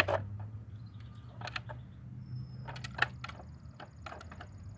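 Irregular plastic clicks and clacks from a hand-worked 3D-printed three-speed transmission as its H-box shifter and dog clutches are pushed about, with third gear not yet engaging.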